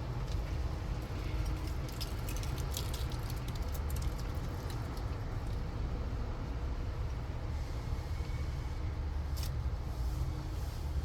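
Steady low rumble of a car idling, heard from inside the cabin, with scattered short clicks and crinkles, mostly two to five seconds in and once more near the end, from handling food packaging while eating.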